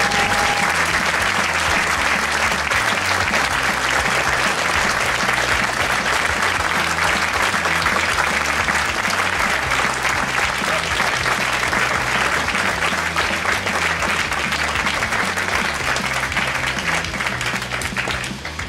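Audience applauding steadily, with background music and a stepping bass line underneath; the applause dies down near the end.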